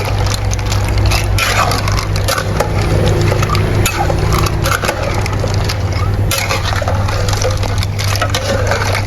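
Boiled shellfish shells being broken and pried open by hand, with many small cracks and clicks. The shells that had not opened in the cooking are the ones being cracked. A steady low hum runs underneath.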